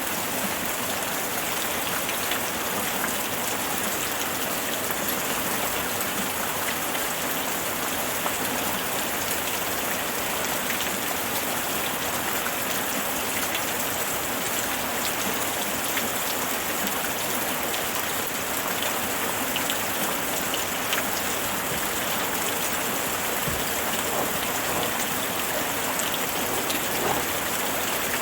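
Steady rain falling, a dense even patter of many drops on a surface.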